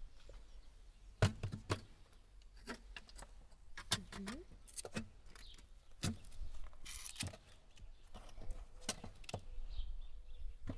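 Metal clinks and knocks from a wire chicken rack being lowered into a tandoor and bumping against its rim, with a brief rustle of aluminium foil partway through.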